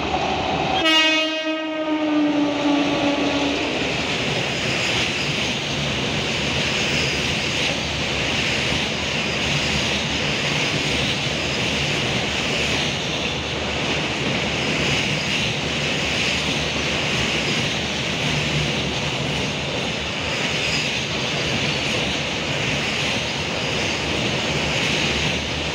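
A locomotive horn sounds about a second in, its pitch dropping as it passes. The car-carrier goods train's wagons then rumble and clatter steadily past on the rails.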